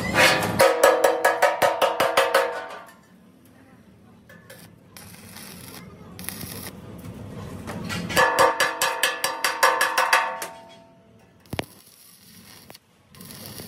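A hammer rapidly striking the hollow steel air-compressor tank, several blows a second, with the tank ringing. There are two runs of blows, one at the start lasting under three seconds and another about eight seconds in, and a single sharp click near the end.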